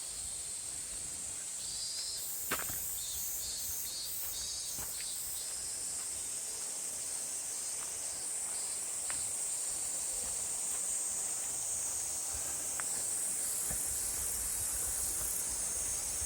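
Chorus of summer insects: a steady high-pitched buzz throughout, with a pulsing high call repeating about twice a second near the start. A few light clicks sound over it, the sharpest about two and a half seconds in.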